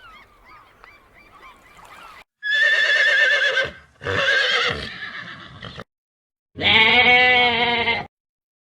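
Faint bird chirping, then a horse whinnying twice with a quavering pitch. After a short silence comes a longer, trembling bleat.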